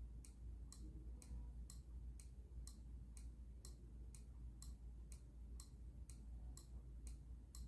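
Faint regular ticking, about two ticks a second, over a low steady hum.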